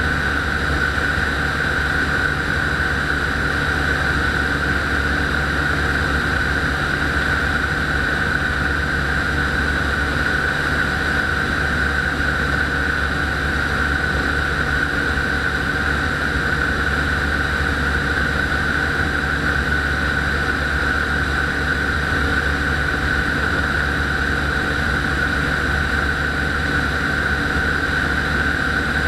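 Rotax 912 four-cylinder four-stroke engine and propeller of a weight-shift microlight trike running steadily in level flight, with steady wind rush over the open cockpit.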